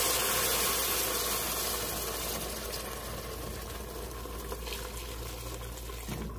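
Beef broth pouring in a stream from a pot into a hot stainless steel stockpot of sautéed beef, a steady splashing hiss that fades gradually as the stream thins toward the end.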